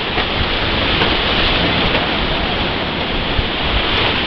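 Class III whitewater rapids rushing and splashing close to the microphone: a steady, loud noise of churning river water.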